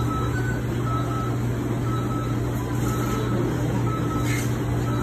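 Short electronic beeps at one high pitch, roughly once a second and sometimes in quick pairs, over a steady low machine hum.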